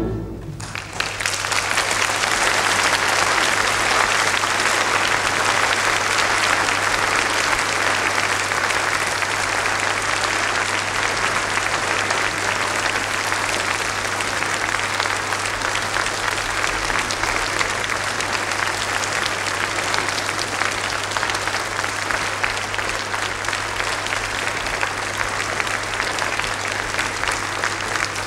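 Concert-hall audience applauding after the final chord of a cello concerto: dense, steady clapping that swells in about a second after the orchestra's last chord dies away, with a steady low hum from the recording underneath.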